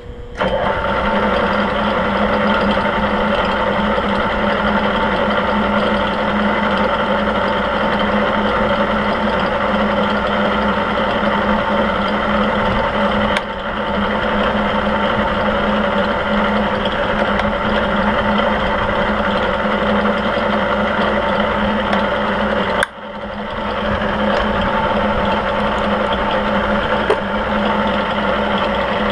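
Milling machine spindle starting up and running steadily with a boring head spinning, a steady mechanical hum with several held tones. The sound briefly drops and recovers twice, about halfway and about three-quarters of the way through.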